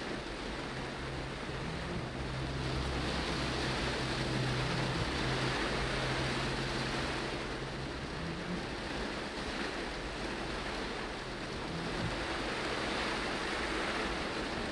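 Heavy rain falling on a car's roof and windscreen, heard from inside the cabin, swelling and easing every few seconds as the windscreen wipers sweep, over a low steady hum from the stopped car.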